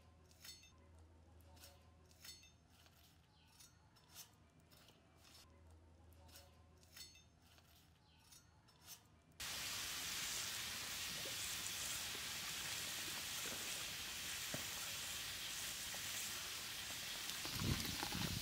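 A metal spatula clinks faintly a few times against an aluminium bowl of fried eggs. About nine seconds in, this cuts to a large aluminium pot of rice boiling hard, a steady loud bubbling, with a few low knocks near the end.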